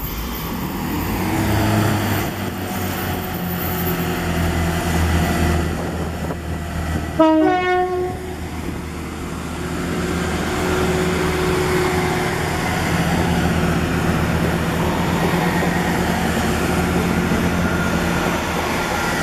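Class 166 diesel multiple unit departing, its diesel engines running under power as the coaches pass close by. A short horn blast sounds about seven seconds in.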